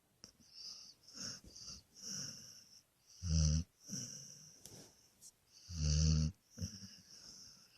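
Beagle snoring in its sleep: a run of wheezy breaths with a thin high whistle, and two louder, deeper snores about three and six seconds in.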